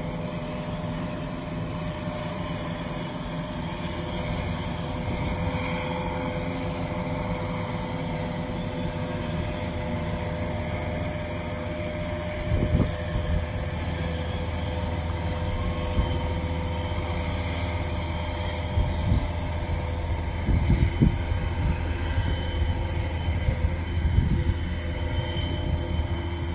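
Tugboat's diesel engines running with a steady low rumble and a held hum as it passes, with a few sudden low thumps along the way.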